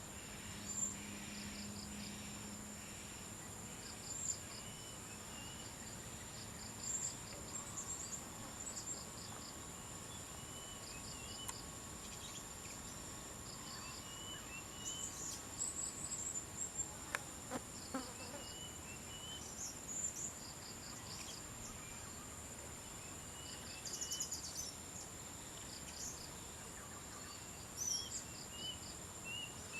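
Outdoor insect chorus: a steady high-pitched drone with repeated short trains of chirping pulses, and scattered brief high chirps over it. A couple of faint clicks sound about halfway through.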